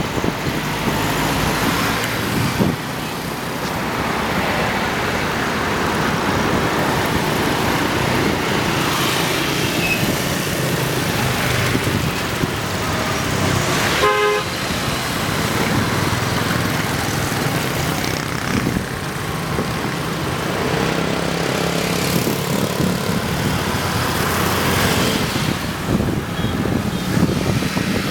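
Steady road traffic with engines running, and a vehicle horn beeping briefly about halfway through.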